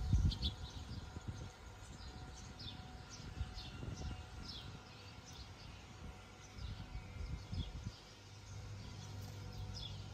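Small birds chirping in short, falling chirps, about once or twice a second, over a faint low rumble that swells now and then.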